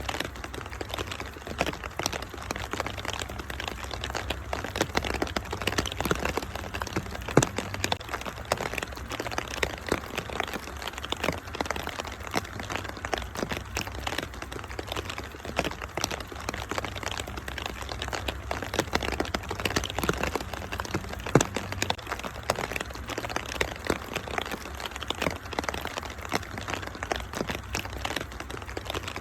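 Wood fire in a fireplace crackling steadily with many small snaps and two louder pops, about 7 and 21 seconds in, over a steady patter of rain and a low rumble.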